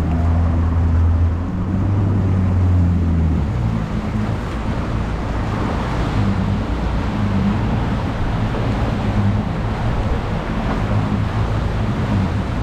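Motorboat engine running steadily under way, a low hum over the rush of wind and water. The hum is strongest for the first three or four seconds, then the rushing noise takes over.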